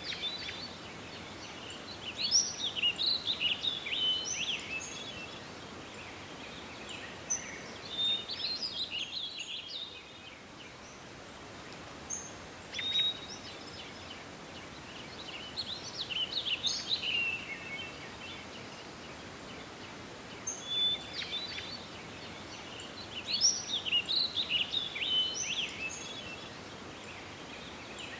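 Birds singing in short bursts of quick chirps and warbling phrases every few seconds, over a steady background hiss.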